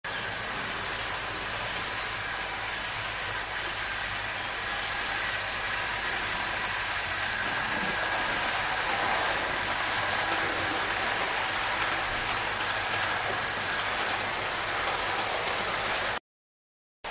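Märklin HO model trains running on metal track: a steady rolling rattle and motor whir that grows a little louder in the middle as a train passes close, then cuts off abruptly near the end.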